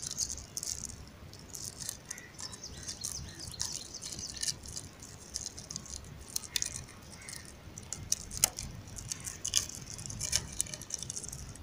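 A thin plastic cover sheet crinkling and rustling as it is folded over the end of a PVC pipe and held on with a rubber band: irregular small crackles and clicks throughout.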